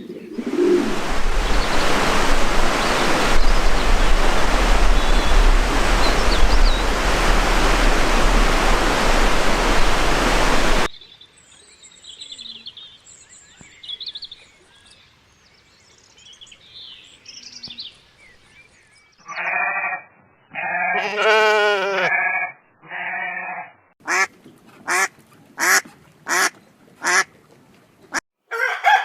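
A loud, steady rushing noise with a low rumble runs for about the first eleven seconds and cuts off suddenly. Faint bird chirps follow, then four bleating calls from a goat or sheep. Near the end comes a quick series of short duck quacks, about two a second.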